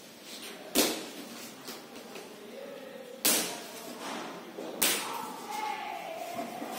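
Packing tape being ripped off a cardboard shipping box: three sharp tearing strokes, about a second in, past three seconds and just before five seconds, each dying away quickly.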